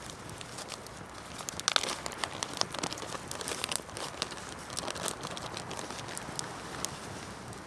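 Pine campfire crackling, with irregular sharp pops and snaps.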